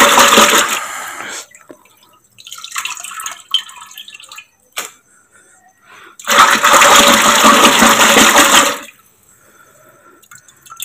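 A hand sloshing and splashing through churned buttermilk in a metal pot, scooping out lumps of fresh butter. Two long loud sloshes, one at the start and one from about six to nine seconds in, with softer splashing and a single sharp click between them.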